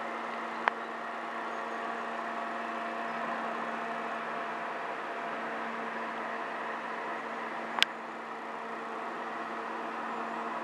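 Steady rush of a flowing river, with a steady low hum beneath it. Two sharp clicks, one just under a second in and a louder one about eight seconds in.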